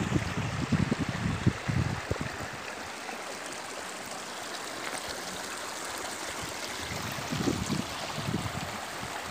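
Mountain stream rushing steadily down the slope, with wind buffeting the microphone in the first couple of seconds and again near the end.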